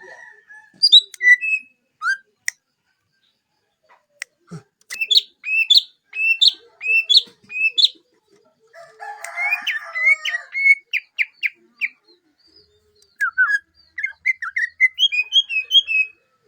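Green leafbird (cucak hijau) singing in phrases of quick, repeated high chirps and whistled notes, with short pauses between phrases. A brief harsh, scratchy burst comes about nine seconds in.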